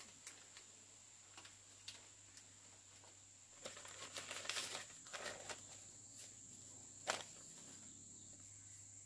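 Faint rustling and scattered clicks, busiest about four to five seconds in, with one sharp click near the seven-second mark, over a steady high-pitched whine.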